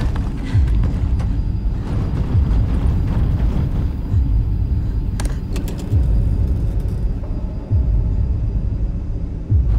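Loud, deep rumbling drone with a low swelling pulse roughly every two seconds, and a brief cluster of sharp clicks about five seconds in.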